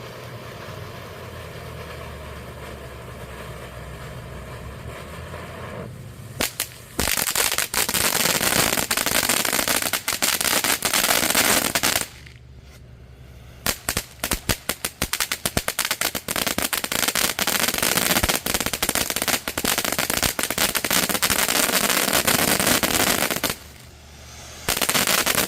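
Consumer fireworks fountain going off with dense, rapid crackling in long runs. The runs stop abruptly twice for about a second before starting again. A steady hum comes before the first run, about six seconds in.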